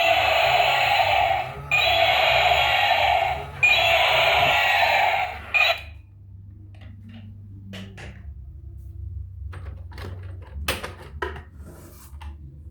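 A toy vehicle's electronic sound effect, loud and noisy, repeating in three segments of about two seconds each and cutting off about six seconds in. Light plastic clicks and knocks follow.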